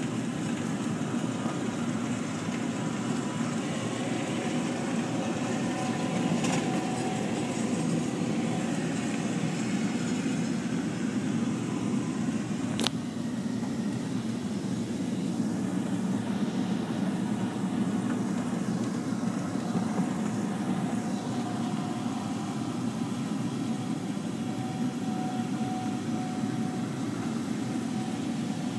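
Steady engine and machinery drone of a self-propelled windrower cutting hay, heard from inside the cab of a following vehicle, with one sharp click about 13 seconds in.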